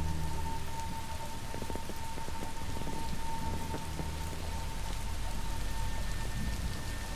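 Steady rain-like patter of falling water with a low rumble underneath, and a thin steady high-pitched whine.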